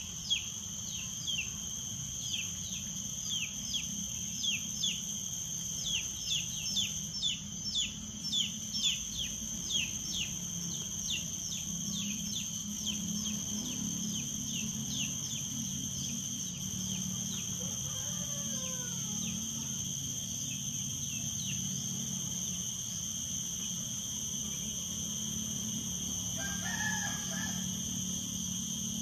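Outdoor ambience of steady high-pitched insect buzzing over a low hum. A run of quick falling chirps, about two a second, fills the first half, and a rooster crows faintly near the end.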